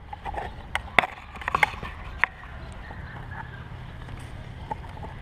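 A few sharp knocks and clatters in the first two and a half seconds, over a low steady rumble.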